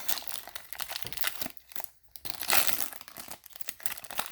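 Foil wrapper of a Bowman Chrome baseball card pack crinkling and tearing as the pack is opened. It comes as a run of crackles, with a short pause about two seconds in and a louder burst just after.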